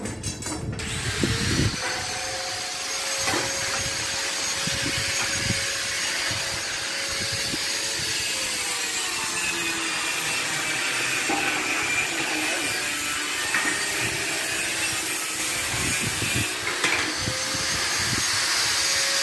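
Electric angle grinder running continuously on metal, starting about a second in. Its motor pitch sags under load for several seconds in the middle, then rises back.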